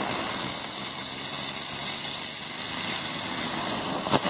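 Explode 'Storm' ground-spinner firework spinning on asphalt, hissing loudly and steadily with faint whistling tones as it sprays sparks, with a sharp crack near the end.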